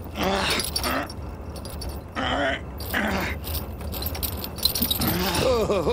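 A man grunting and straining in three short bursts as he struggles against handcuffs chained in place, with the metal cuffs and chain rattling.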